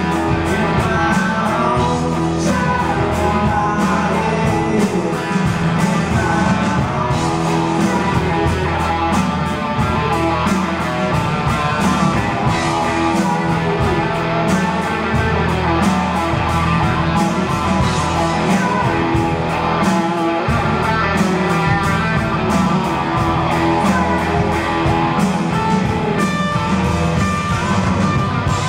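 A live rock band playing, with a gold-top Les Paul-style electric guitar to the fore over drums.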